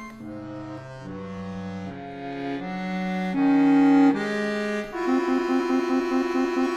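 Solo classical accordion playing a contemporary piece: a run of sustained chords that changes about every half second and swells to its loudest about three and a half seconds in. Near five seconds a new chord enters and pulses fast and evenly.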